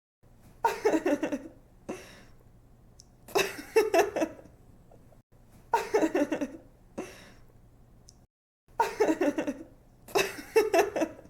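A young woman giggling and laughing in several short bursts of quick "ha-ha" pulses, with brief lulls between them.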